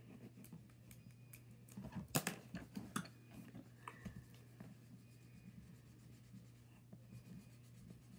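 Faint scratching and tapping of felt-tip markers on paper, with a cluster of sharper clicks about two seconds in.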